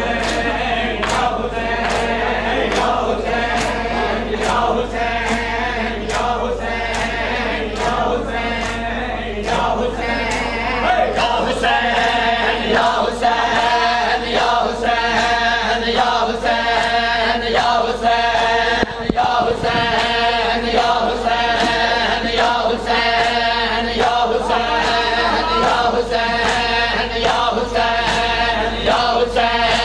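Men's voices chanting a noha together, with sharp chest-beating strikes (matam) keeping a steady rhythm under the chant.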